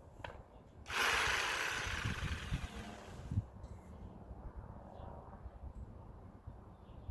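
A corded power tool bursts into a short run about a second in and then fades out over about two and a half seconds, a hissing whir that is loudest in its upper range.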